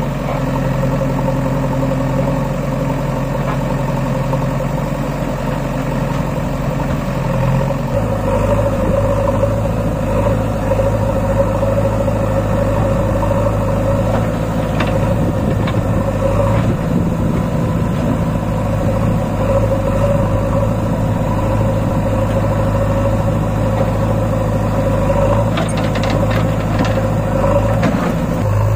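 Diesel engines of a Swaraj 744 FE three-cylinder tractor and a JCB backhoe loader running steadily side by side. The engine note changes about eight seconds in, and a few faint clatters come near the middle and toward the end.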